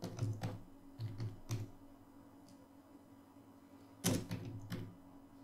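Typing on a computer keyboard: a quick run of keystrokes, then after a pause of a couple of seconds a louder keystroke about four seconds in, followed by a couple more.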